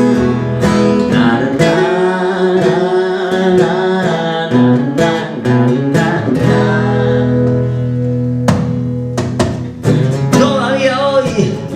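Acoustic guitar music: strummed chords with a wavering melodic line played over them.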